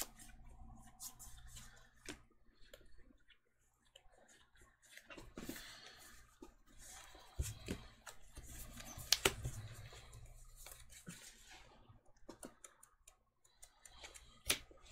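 Sleeved trading cards being handled on a playmat: cards shuffled, slid and set down, with scattered soft rustles and a few sharper clicks, the loudest about nine seconds in and near the end.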